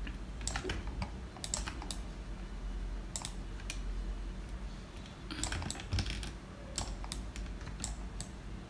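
Computer keyboard keystrokes and mouse clicks, tapped in small irregular clusters, over a low steady hum.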